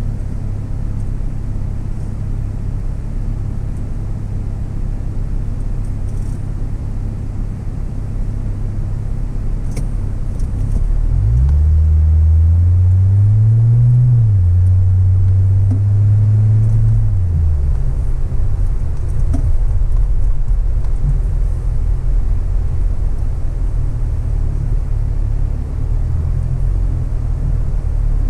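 Car engine and road rumble heard from inside the cabin: a steady low hum while stopped, then the engine note rises as the car pulls away about a third of the way in, eases slightly, holds, and drops again a few seconds later, leaving a louder rolling rumble.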